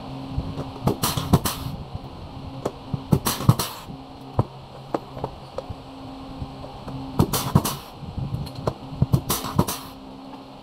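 Scattered sharp clicks and knocks of aluminium frame profiles and screws being handled, in small clusters, over a steady low hum.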